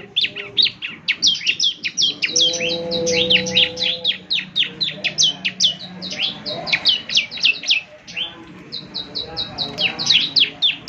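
Bar-winged prinia (ciblek) singing prolifically: a fast string of sharp, high chirps that sweep downward, several a second, with a run of short, evenly repeated notes toward the end.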